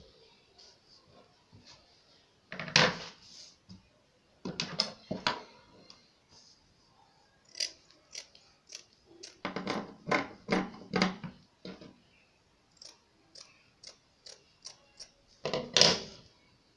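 Satin fabric and a paper pattern being handled on a wooden table: irregular crisp rustles and crinkles, with a quick run of short clicks near the end.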